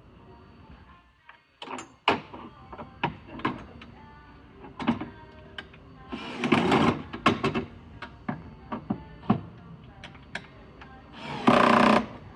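Clicks and knocks of bed-frame panels and fittings being handled and fastened. Two short whirring runs of a small motor come about halfway and near the end, the second the loudest.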